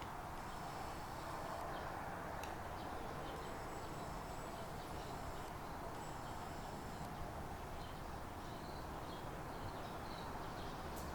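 Steady outdoor ambience: an even background hiss with faint high steady tones, a couple of soft clicks, and small bird-like chirps near the end.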